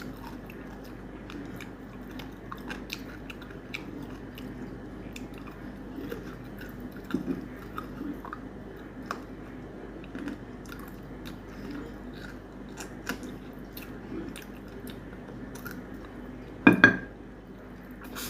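Close-miked chewing of mutton curry and rice, with many small wet mouth clicks and smacks. Near the end there are two louder sharp sounds in quick succession.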